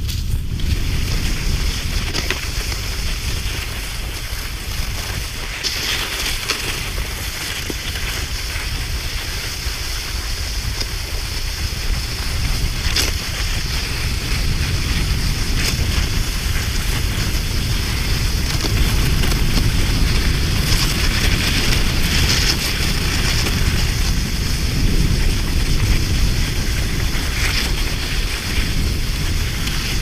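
Wind buffeting the microphone: a steady rumble with a hiss over it, swelling a little past the middle.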